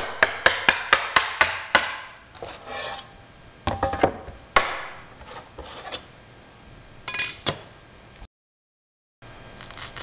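Rapid sharp tapping of a glass cutter against mirror glass along a score line, about four taps a second, stopping about two seconds in. Then scattered clinks and knocks as the cut glass pieces are handled.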